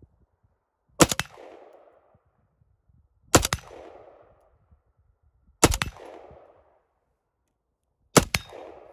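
Rifle fired four single shots, roughly two and a half seconds apart, each sharp crack trailing off in a short echo.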